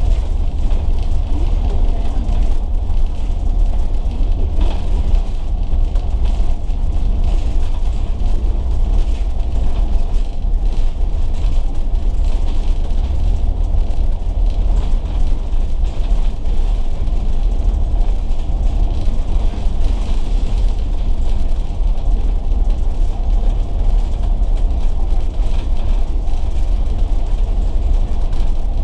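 Interior sound of a Volvo B9TL double-decker bus: a steady low rumble from the diesel engine and running gear, with constant small rattles and creaks from the body and fittings.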